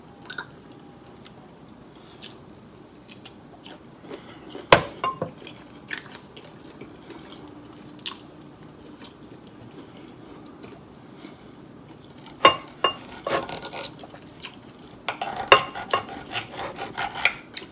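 Close-up eating sounds: chewing, lip smacks and finger licking, with scattered sharp clicks. In the last third a steel knife and fork scrape and click repeatedly against a ceramic plate as steak is cut.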